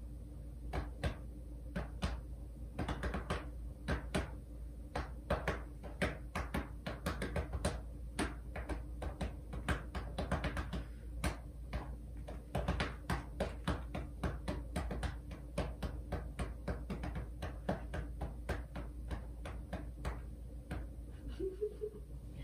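A hand patting a cat's back and rump over and over, a quick irregular run of soft pats with short pauses.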